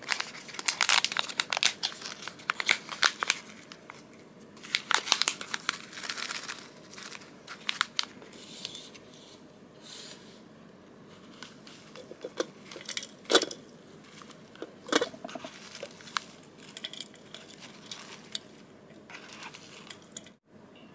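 Thin plastic pouch of dried chamomile flowers crinkling and rustling as it is handled and opened, densest over the first seven seconds or so. After that come sparser light clicks and taps as the glass teapot is handled and the dried flowers are dropped into its infuser.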